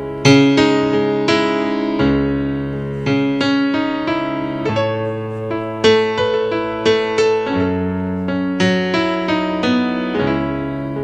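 Stage keyboard with a piano sound playing alone: slow chords and single notes, each struck and left to ring out, about one every second or so.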